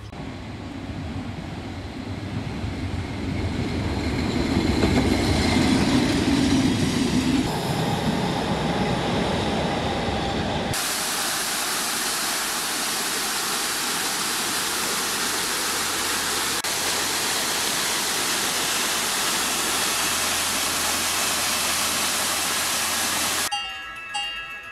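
Small waterfall splashing steadily onto rocks: an even, full hiss of falling water that starts abruptly about eleven seconds in and cuts off just before the end. Before it comes a rumbling rush of noise that swells over the first ten seconds.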